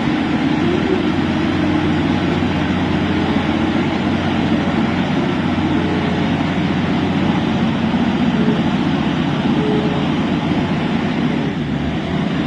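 Tractor engine running steadily under load, easing off slightly near the end.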